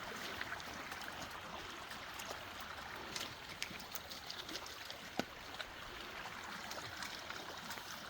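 Mountain stream water flowing steadily, with a few faint scattered ticks and small splashes; the sharpest tick comes about five seconds in.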